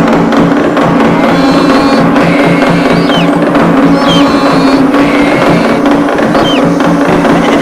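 Drum-driven music with a quick, steady low beat over a held low tone. A few short, sliding high chirps sound now and then.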